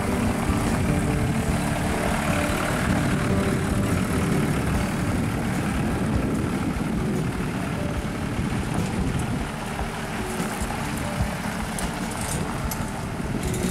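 Compact farm tractor's engine running steadily as it tows a utility trailer over gravel, a little quieter in the second half as it pulls away.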